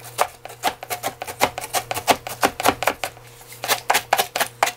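Kitchen knife chopping cabbage kimchi on a cutting board: a quick, even run of knocks about four a second, with a brief pause around three seconds in.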